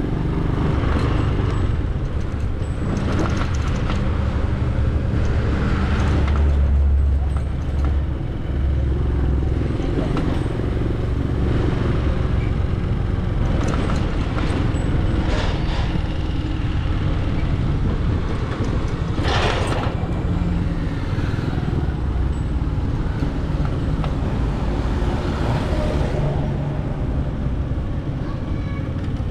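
A motor vehicle running, a steady low rumble of engine and road noise that grows louder about six to nine seconds in.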